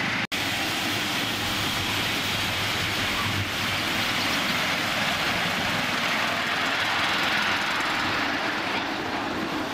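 5-inch gauge miniature steam locomotive running past with a passenger train: a steady hiss of steam and running noise.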